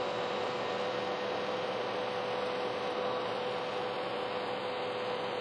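Kearney & Trecker horizontal mill running steadily with a large slitting saw cutting through thick CPVC stock, a constant machine noise with a steady whine.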